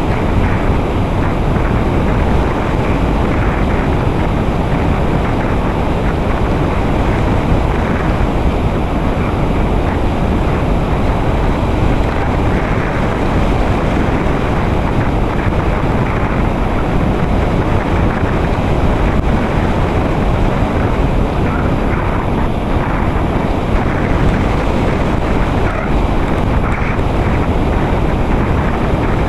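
Steady rushing airflow over the onboard camera microphone of a ParkZone Radian electric RC glider in flight, with no clear motor tone standing out.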